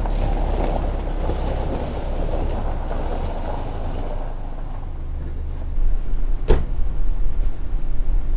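Small hatchback car driving slowly away across a gravel pad and coming to a stop, with wind buffeting the microphone, gusting harder near the end. A single sharp knock about six and a half seconds in.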